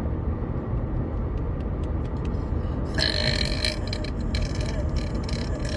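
A woman's long, drawn-out burp of nearly even pitch, starting about three seconds in and lasting some two and a half seconds. She is forcing up trapped gas that has felt stuck in her stomach, and it brings only partial relief.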